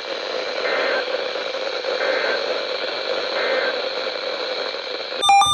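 Weather radio receiver hissing with steady static between broadcast messages, with three faint short tones about a second and a half apart. Just before the end, a loud pulsing electronic alert tone starts.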